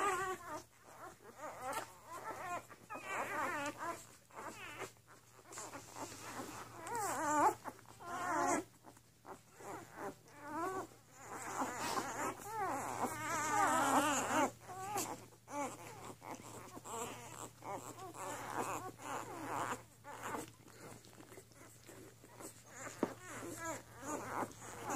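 Newborn puppies, two days old, squealing and whimpering in high, wavering cries that come on and off and often overlap as they nurse.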